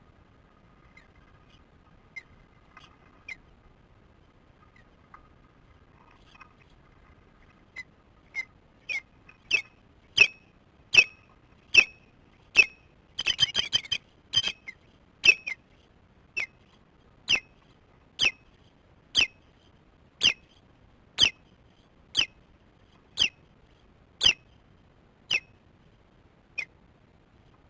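Nesting osprey giving its alarm call at an intruder: a series of short, sharp, high whistled calls, about one a second, starting some eight seconds in and running on, with a quick run of rapid calls midway.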